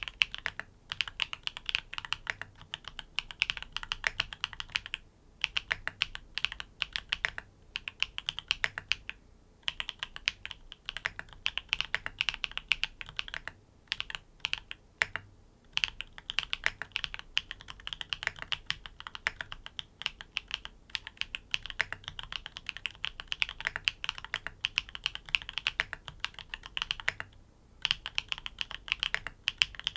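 Typing on a NEO80 custom mechanical keyboard with tactile switches, in an O-ring mount: a rapid, continuous run of keystrokes with a soft 'kotokoto' clack, broken by a few brief pauses.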